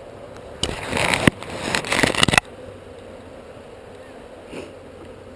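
Honeybees humming steadily around an open hive. About half a second in, this is broken by two loud, rough rushes of noise lasting about two seconds in all, from hive equipment being handled close to the microphone.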